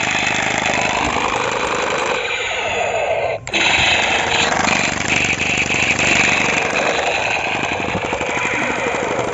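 Battery-powered toy assault rifle playing its electronic rapid-fire sound effect, a loud harsh rattle that breaks off for an instant about three and a half seconds in and then starts again.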